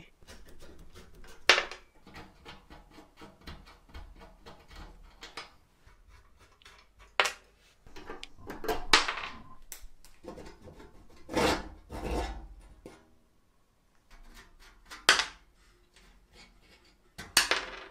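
Rusty perforated sheet-metal door of an antique potato peeler being unscrewed with a screwdriver and wrench and worked loose by hand: light metal scraping and rubbing, with several sharp clicks and knocks spread through.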